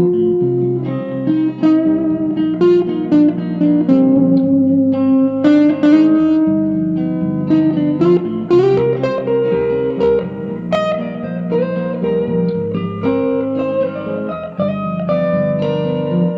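Electric guitar played through a Vox AC10C1 valve combo amp: a continuous passage of single-note lines mixed with chords.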